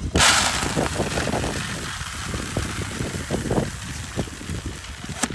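Livestock feed pouring from a gravity feed bin's chute into a plastic bucket. It is a steady rushing hiss that starts abruptly and is loudest at first, and it stops near the end with a click.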